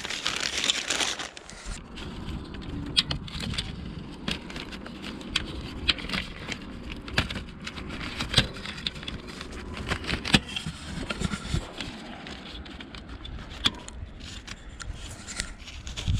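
Irregular clicks, ticks and scraping from hands-on work handling the stripped fiber-optic cable and tools, over a low rumble.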